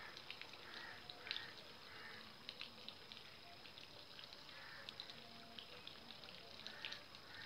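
Faint drips and small splashes of water as hands move through shallow water among waterside weeds, a scatter of light irregular ticks.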